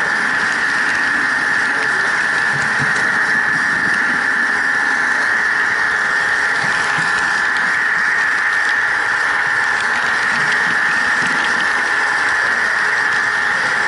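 Model train running along the layout, heard from the camera car: a steady high motor whine from the pushing SP45 model locomotive over a constant rattle of small wheels on the rails, with faint scattered clicks.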